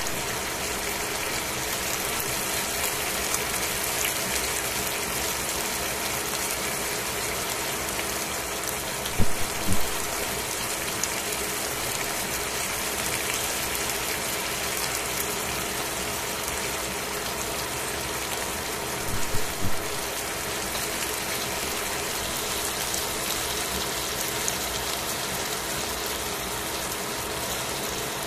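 Chicken slices sizzling in a stainless steel frying pan: a steady hiss, with a couple of brief louder spurts of spattering about nine seconds and nineteen seconds in.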